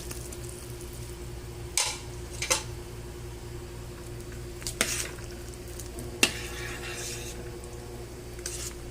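A spoon or ladle knocking against a cooking pot of soup while it is stirred: about five sharp clinks a second or two apart, over a steady low hum.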